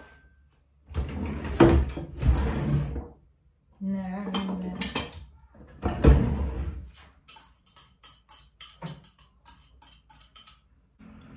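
A kitchen drawer opened and metal utensils clattering as a whisk is fetched. Then a string of short, light metal clicks, about three or four a second, as the whisk taps and scrapes in the pan.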